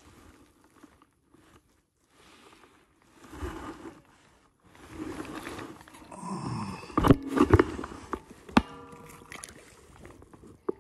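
Rustling and knocks as a caught bass is handled aboard a plastic fishing kayak. A few sharp knocks in the second half are the loudest part.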